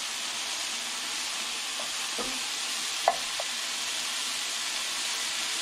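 Chunks of marinated beef stew meat sizzling steadily as they sear in a hot frying pan. A few light clinks, the sharpest about three seconds in, as the pieces are turned.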